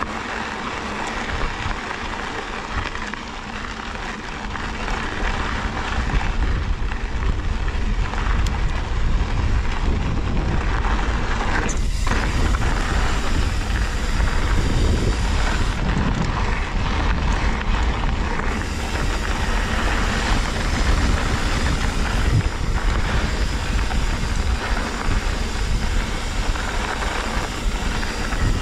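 Mountain bike being ridden on a desert trail: steady rush of tyres rolling over dirt and rock with wind noise, louder from about six seconds in, and a single sharp knock about twelve seconds in.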